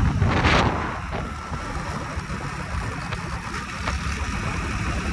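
A vehicle on the move, with a steady low rumble and wind buffeting the microphone. It is loudest for the first moment and then settles to a steadier, quieter rumble.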